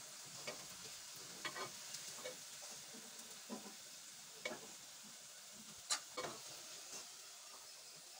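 Potato slices coated in gram flour frying in hot oil, a steady faint sizzle, with scattered clicks and knocks of a utensil against the pan as they are stirred; the sharpest knock comes about six seconds in.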